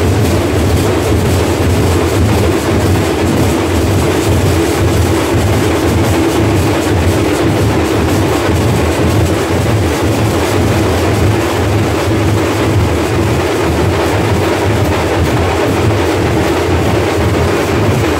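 Loud, steady rumbling din of a large packed crowd, with no clear words or tune standing out.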